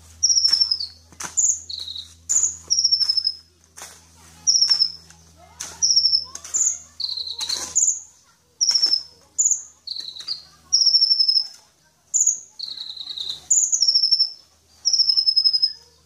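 Caged sunbird singing: bursts of short, thin, high notes, many sliding downward, repeated about once a second, with sharp clicks mixed in between.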